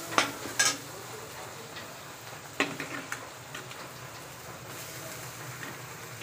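Metal spatula scraping and knocking against a wok a few times, with the sharpest knocks near the start and about two and a half seconds in. A low sizzle of onions, chillies and spice paste frying in oil runs underneath.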